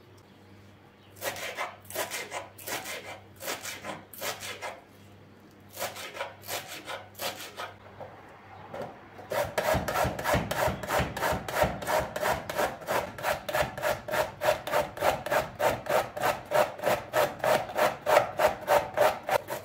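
Peeled zucchini being grated on a metal box grater over a wooden board, making rasping strokes. A few short runs of strokes come first, then a steady rhythm of about three strokes a second from about halfway through.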